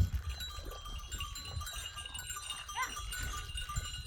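Flock of sheep and goats, with one short bleat about three seconds in, over a low rumble.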